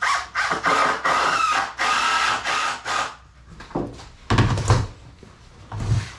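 About half a dozen loud, harsh scraping strokes in quick succession, then dull thumps as a plastic storage bin is set down on a concrete floor.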